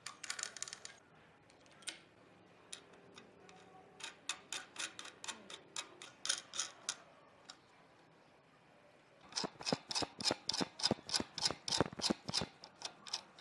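Sharp taps on wood at woodworking, in runs. A short, uneven run about four seconds in is followed by a steadier, louder run of about five taps a second from about nine seconds in, ending near the end.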